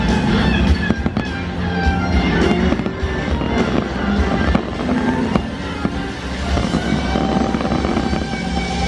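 Aerial fireworks bursting in quick succession, many sharp bangs that come thickly for the first five seconds or so and then thin out, over the show's music playing through loudspeakers.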